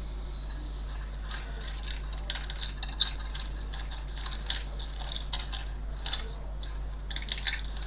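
Scattered light clicks and clinks, the sharpest about three seconds in, as an opened car audio amplifier's chassis and boards are handled, over a steady low hum.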